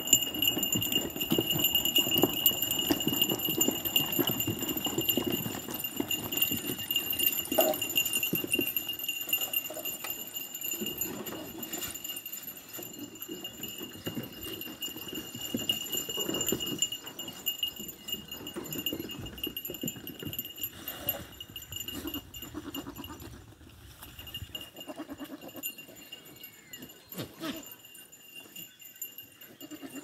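A herd of goats bleating now and then, over a steady high-pitched tone.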